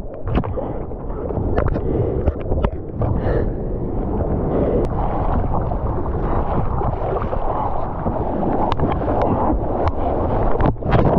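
Surf and seawater washing around an action camera at the waterline: a steady rumbling wash with scattered sharp splashes, and wind buffeting the microphone.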